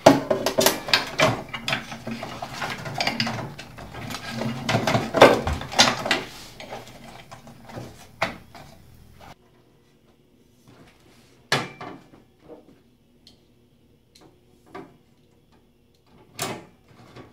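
Cable and connector handling inside an open industrial terminal: rustling wires and rapid plastic clicks as a video adapter cable is plugged into the circuit board. Then a few separate sharp clicks and knocks from an Allen key on the metal case.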